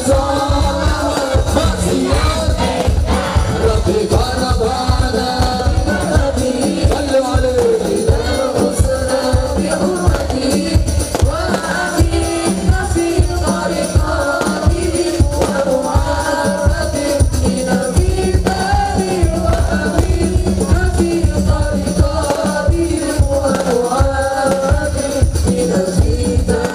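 Sholawat, Islamic devotional song: a man sings the lead through a PA over a steady, fast drum rhythm, with other voices joining in.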